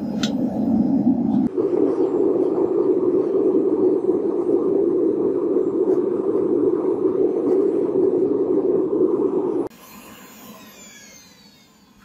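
Gas burner of a homemade melting furnace running with a steady, loud rushing noise; its pitch shifts up about one and a half seconds in, and it cuts off suddenly near the end as the burner is shut down.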